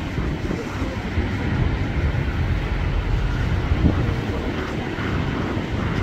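Strong wind buffeting the microphone: a steady, gusty low rumble.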